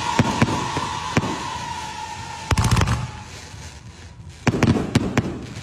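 Fireworks going off: repeated sharp cracks and bangs, with two dense rapid clusters, one about halfway and one near the end. A high whistle sinks slightly in pitch and fades out about halfway through.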